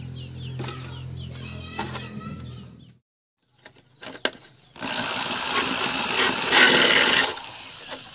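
Power drill with a hole saw cutting through a plastic container: a few clicks, then a loud grinding cut lasting about two and a half seconds that fades out near the end.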